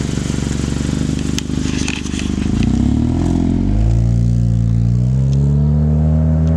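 Honda Accord's aftermarket Tsudo dual race exhaust as the car pulls away and accelerates. The engine note climbs in pitch, falls back about halfway through, then drones and climbs again more slowly.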